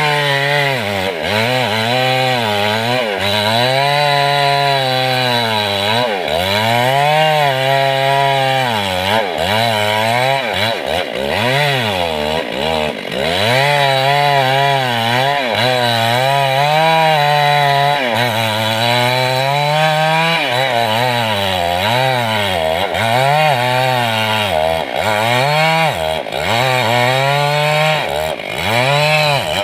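Stihl chainsaw cutting through mahogany wood, its engine pitch repeatedly sagging under the load of the cut and rising again every second or two.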